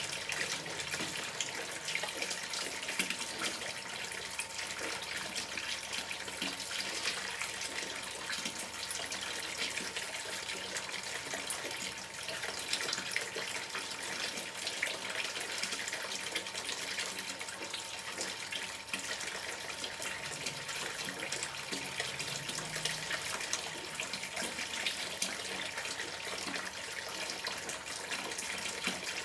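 River water running and gurgling: a steady babble of many small splashes and trickles.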